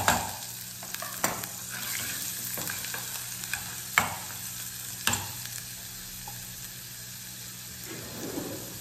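Chopped onion frying in hot lard in a small metal saucepan, sizzling steadily, while a metal ladle stirs it and knocks sharply against the pan a few times.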